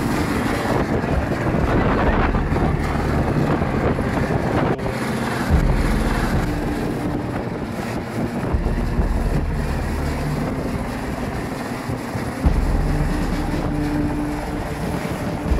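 Rigid-hull inflatable boat's engine running on the water, with wind buffeting the microphone; the low rumble strengthens and eases a few times.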